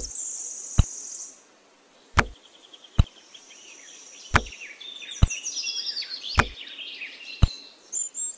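Small white pebbles clicking as they are picked from a bamboo basket and set down one at a time: about eight sharp clicks roughly a second apart. Birds chirp in the background.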